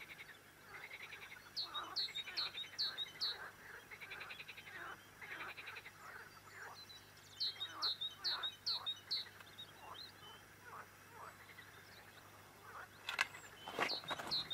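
Frogs croaking in short pulsing calls from the pond, with a small bird singing quick runs of five or six high chirps twice. A sharp click and a short rush of noise come near the end.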